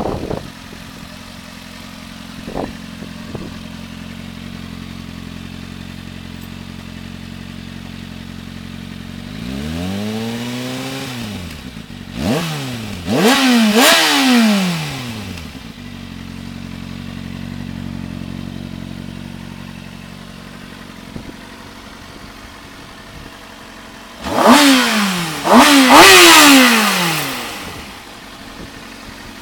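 2007 Kawasaki ZX-6R's inline-four engine idling steadily and revved by the throttle: one slow rise and fall about a third of the way in, two sharp blips soon after, and another group of sharp blips near the end, each dropping back to idle.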